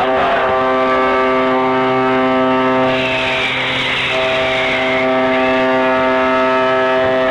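Ship's whistle sounding one long, deep, steady blast. About three seconds in, a brief rushing noise with a falling tone rises over it.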